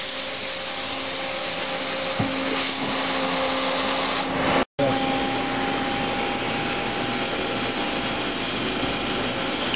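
Mazak H400N horizontal machining center running with its spindle turning: a steady whir of motors with a steady whine. The sound cuts out for a split second about halfway through.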